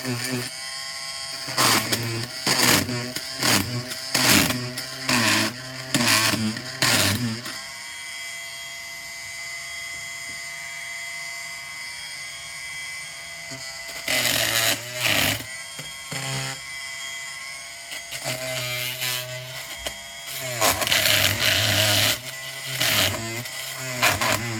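Oscillating multi-tool running with a steady high buzz, broken by repeated louder, harsher bursts as the blade cuts into old upholstery fabric on a chair. For several seconds in the middle it buzzes evenly without cutting.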